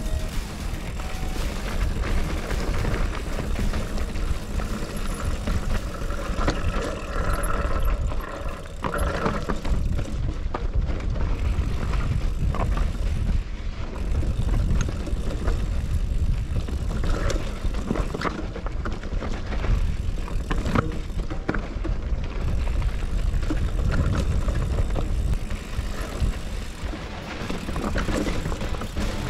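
Commencal Meta HT hardtail mountain bike descending a dry, rocky dirt trail: a constant low rumble of tyres on dirt with frequent rattles and knocks from the bike over rocks and bumps.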